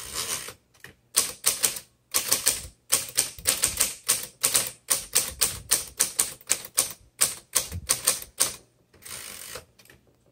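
1956 Underwood Universal portable typewriter being typed on: a run of sharp keystrokes at about three to four a second, with a brief rasping sound near the end.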